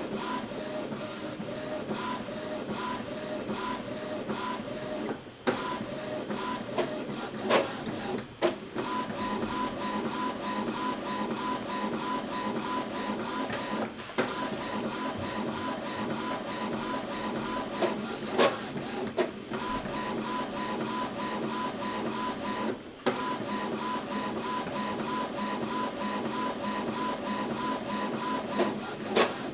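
Epson EcoTank ET-2720 inkjet printer printing a page: the print head carriage shuttles back and forth with a steady mechanical whirr and a whine that comes and goes, pausing briefly a few times. It is printing the print head alignment pattern during setup.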